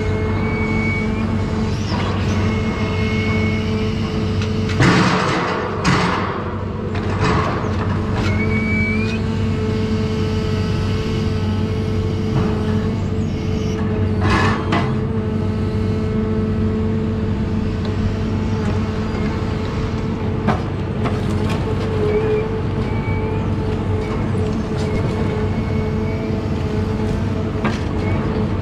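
John Deere 1010G forwarder's diesel engine running steadily, with a thin high whine coming and going over it. Brief noisy surges break in about five seconds in, once more shortly after, and again around fourteen seconds.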